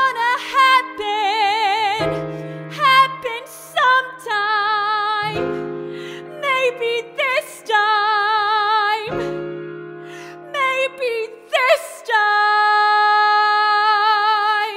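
A woman belting a musical-theatre song over grand piano chords. Her sung notes carry a wide vibrato, and the song closes on a long held note that cuts off sharply near the end.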